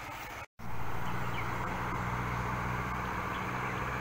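Brown floodwater rushing, as a steady hiss, with a steady low hum under it like an engine idling. The sound drops out for a moment about half a second in.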